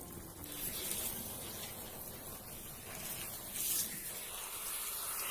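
A spray hissing steadily, swelling into louder, sharper bursts of hiss every second or two.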